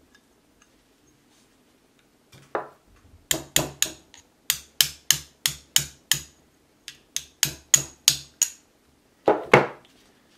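Small hammer tapping a steel punch to drive the sear pin out of a Browning Hi-Power pistol frame. Sharp metallic taps: a couple of single ones, then three quick runs at about three taps a second, and one louder knock near the end.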